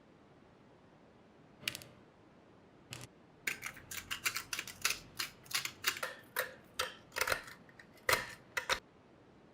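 A quick, irregular run of sharp clicks and snips, a few at first and then many close together for about five seconds.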